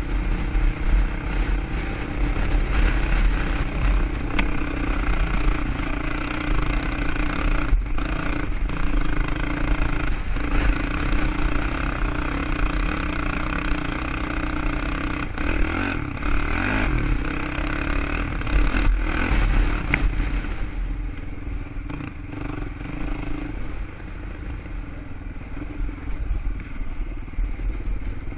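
ATV (quad) engine running while being ridden off-road, holding a fairly steady note with a heavy low rumble; it gets quieter near the end.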